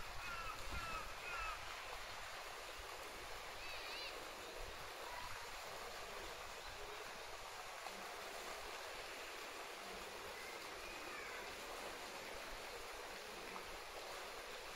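Steady rush of water in an animal enclosure's pool, with a few faint high calls in the background.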